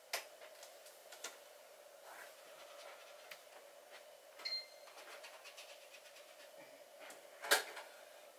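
Quiet room tone with a steady faint hum, broken by a few soft clicks and taps, the loudest near the end, and a brief high electronic beep about halfway through.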